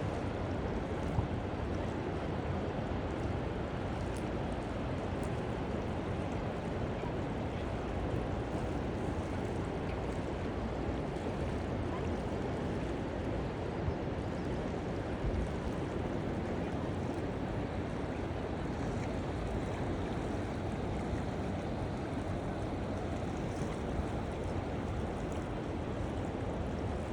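A river's water rushing steadily, a continuous even wash of sound without breaks.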